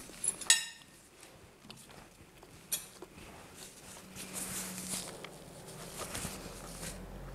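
A sharp clink of cutlery against a plate about half a second in, and a smaller click near three seconds. Then a paper napkin rustles around a baked mini muffin, followed by soft biting and chewing.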